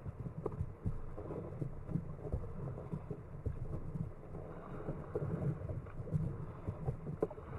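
Water splashing and slapping around a kayak under way, with wind rumbling on the microphone and scattered short knocks.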